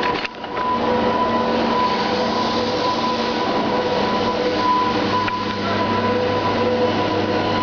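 Steady industrial din of a working shipyard: a continuous rushing rumble with a machinery hum holding two steady tones, dipping briefly just after the start.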